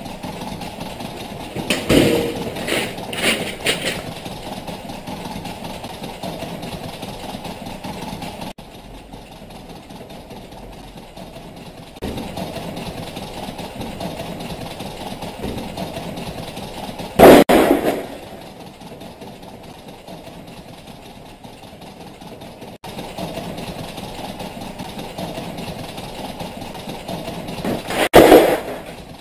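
A steady low drone, broken by sudden loud bangs: a quick cluster of three or four about two seconds in, one more a little past the middle, and another just before the end.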